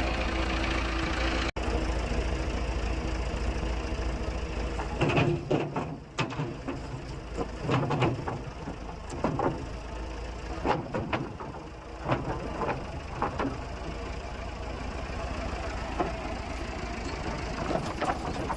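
Sawmill engine running steadily, with a series of irregular knocks and clunks from about five seconds in.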